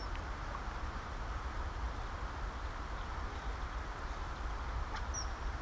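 Steady outdoor background noise with a low wind rumble on the microphone, and a short high bird chirp about five seconds in.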